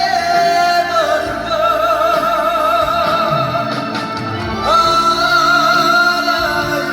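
Live trot song: a male singer holds one long note with a wide vibrato over band accompaniment, then starts a new sustained note about five seconds in.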